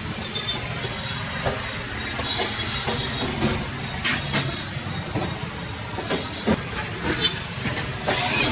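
Wood-plastic composite ceiling panels knocking and clicking as they are pushed up into place against a metal frame, over a steady low rumble. Near the end a corded drill runs briefly.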